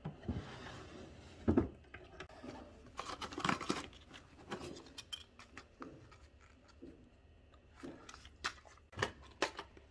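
A wooden dresser drawer is pulled open by its metal handle, with a dull knock about a second and a half in, then cardboard medicine boxes are shuffled and handled, giving light rustles and scattered sharp clicks.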